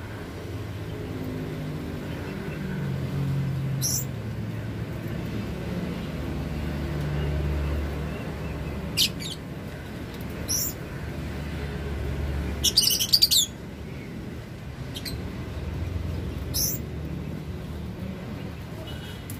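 Caged lovebirds giving short, sharp, high-pitched chirps every few seconds, with a quick run of calls about two-thirds through the loudest, over a steady low background rumble.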